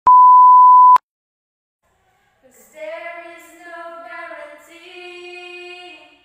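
A loud, steady high-pitched beep about a second long: the television test-card tone that goes with colour bars. After a short silence a woman sings alone without accompaniment, holding a long steady note near the end.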